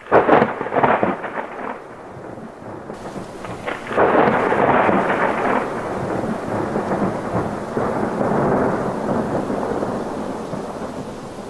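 Thunder: a sharp crack at the start, then a long rolling rumble with a second loud swell about four seconds in, slowly fading toward the end.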